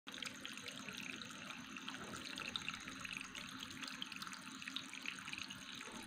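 Water trickling steadily from a small cement fountain bowl into a lower bowl of pebbles, faint.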